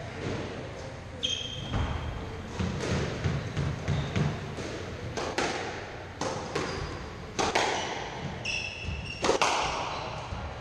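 Squash rally: the ball strikes rackets and the court walls with sharp cracks, about one a second in the second half, the loudest near the end. Between them come footfalls thudding and short squeaks of court shoes on the wooden floor.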